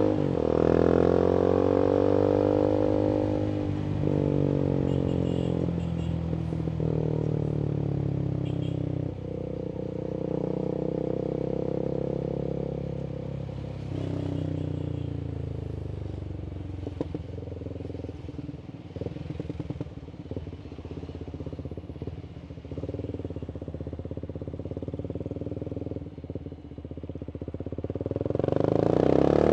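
Voge 300AC motorcycle engine through a free-flowing full-system exhaust, revs falling as the bike slows at the start, then running at low revs with an uneven crackle for a while, and revving up hard again near the end. The engine is reflashed to run richer.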